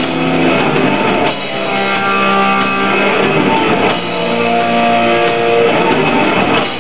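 Thrash metal band playing live: electric guitar holding long, loud notes that change every second or so, over a dense wash of sound.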